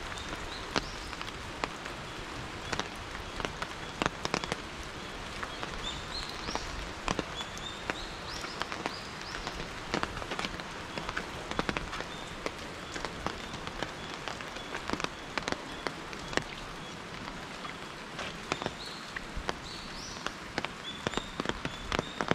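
Steady rain, with many sharp taps of raindrops landing close by over an even hiss. Short high chirps that rise in pitch come in a few clusters.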